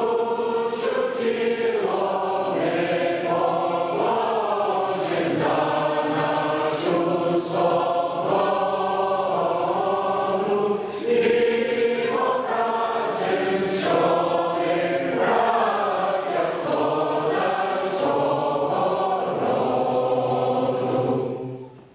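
Ukrainian folk choir of women's and men's voices singing a song together in long held phrases, with a brief breath between phrases about halfway through. The song ends just before the end.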